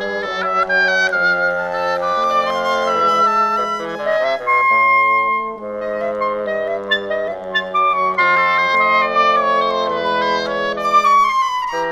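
Woodwind quintet of flute, oboe, clarinet, bassoon and French horn playing together: several melodic lines move over held low notes, with a line that falls in pitch toward the end.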